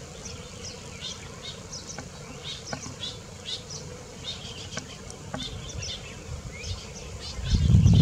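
A colony of baya weavers chattering at their hanging nests: many short, high chirps overlapping throughout. Underneath runs a low rumble that swells and gets much louder near the end.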